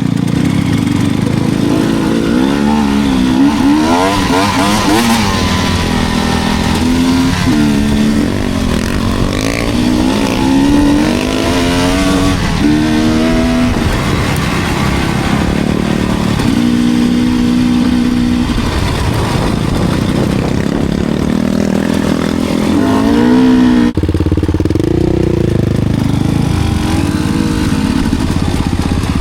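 Enduro dirt bike engine under way, the revs rising and falling again and again as the throttle is worked and gears are changed.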